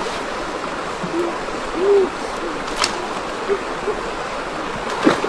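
Shallow rocky stream running steadily, with water splashing as someone wades through it. Several short, low hoots sound at intervals, the loudest about two seconds in, and there is a sharp click near three seconds in.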